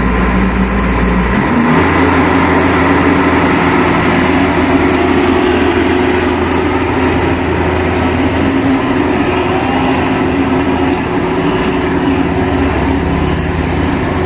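Maxxi Bimo 102 combine harvester's engine running steadily. About a second and a half in, its speed steps up, and it then holds at the higher speed.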